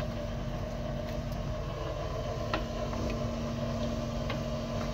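Steady engine hum with a constant low tone, joined by a few faint light clicks, as of chopsticks tapping an aluminium pot.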